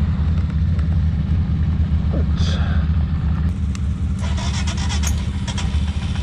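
Royal Enfield Himalayan 411's single-cylinder engine running just after start-up, with a metallic grinding-like rattle on starting that points to a fault.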